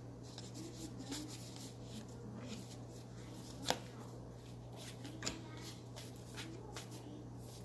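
Baseball trading cards handled and shuffled through by hand: faint rustling and light clicks of card stock, with a sharper tap about three and a half seconds in.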